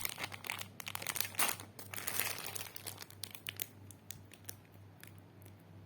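Packaging crinkling and rustling as items are handled, busy for about the first three seconds, then thinning to a few scattered clicks.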